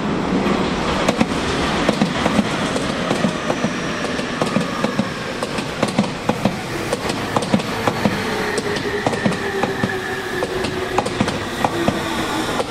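Tobu 30000 series electric train running with many sharp wheel clicks over rail joints, its motor whine slowly falling in pitch as the train slows.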